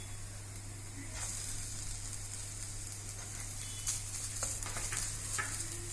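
Onion, green chilli and grated coconut sizzling in hot coconut oil in a pan while being stirred. The sizzle grows louder about a second in, and a few light knocks of the stirring spoon come in the second half.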